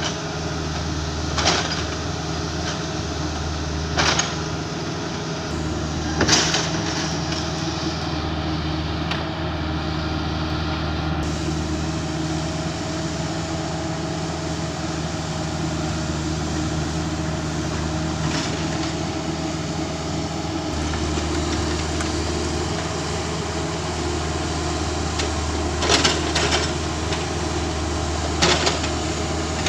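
Kubota mini excavator's diesel engine running steadily, with a handful of sharp knocks now and then.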